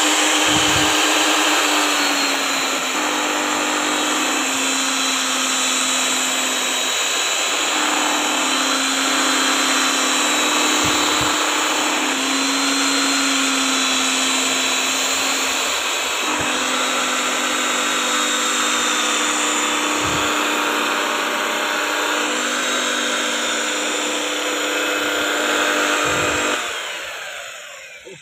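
Electric paddle mixer running steadily, churning rubber granules coated with PU binder in a plastic tub. The motor hum shifts a little in pitch, and the granules make a dense hiss. Near the end the mixer is switched off and winds down.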